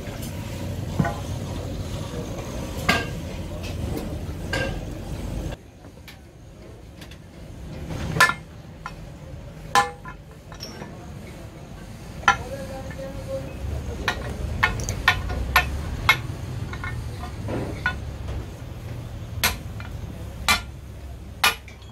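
Loose steel tie-rod-end parts clinking and knocking against each other and the concrete floor as the joint is taken apart by hand: a dozen or so sharp, separate clinks at uneven intervals. For the first few seconds a steady low hum runs under them and cuts off suddenly.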